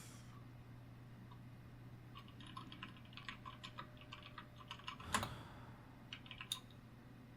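Computer keyboard typing: scattered bursts of soft key clicks, with one louder, fuller knock about five seconds in, over a steady low hum.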